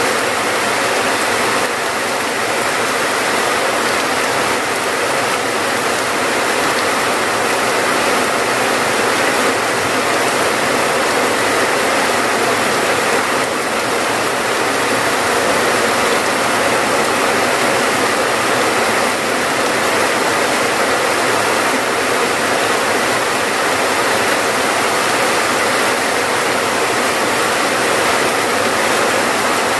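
Steady heavy rain, an even dense hiss of falling water with no breaks or single drops standing out.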